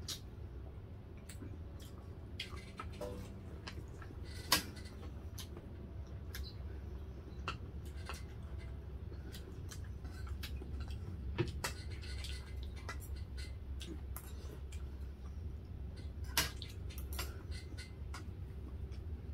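Eating sounds at a table: chewing and lip-smacking, with scattered light clicks of forks and spoons against plates. Three sharper clinks stand out, one about four seconds in, one near the middle and one near the end.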